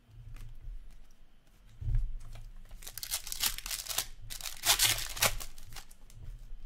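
A hockey card pack's wrapper being torn open by hand: a dull bump of handling about two seconds in, then two crinkly tearing bursts around three and four and a half seconds in.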